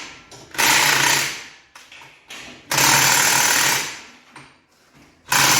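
Angle grinder run in three short bursts of about a second each, each winding down after release, grinding off a weld inside a forage harvester's blower where a paddle was rubbing and ticking.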